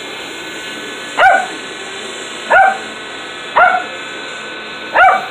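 A small dog barking sharply four times, about a second or so apart, at a toy remote-control helicopter flying around it. Under the barks runs the steady electric whirr of the toy helicopter's rotor.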